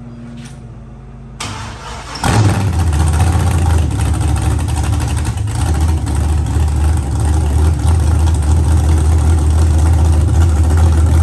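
An LS V8 fitted with a big aftermarket cam is cranked over by the starter, fires about two seconds in and settles into a steady idle. The open EGR port in the intake, a vacuum leak that had made it idle high, has just been capped off.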